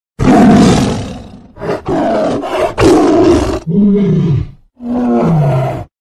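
Tiger roaring: one loud, rough roar, then a quick run of shorter roars, then two lower calls that each fall in pitch.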